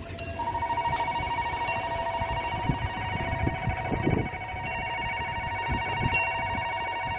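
Railway level crossing warning bell ringing steadily with a fast, even pulse, the stronger of its two tones starting a moment in, over a low rumble.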